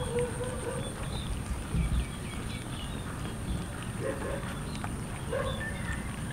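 A crowd of cats eating rice from a metal bowl: continuous chewing, lapping and jostling, with a dull knock about two seconds in. A few short pitched calls from the cats cut through: one at the start, one about four seconds in and one about five seconds in.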